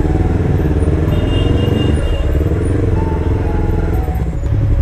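Sport motorcycle engine running at low, steady revs in slow traffic, with no throttle blips.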